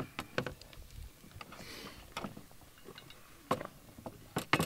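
Knife chopping vegetables on a cutting board: irregular sharp taps, with a few louder knocks near the end.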